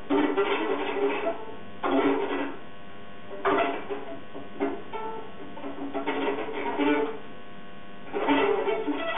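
Solo violin plucked pizzicato in free improvisation: short flurries of notes with brief pauses between them.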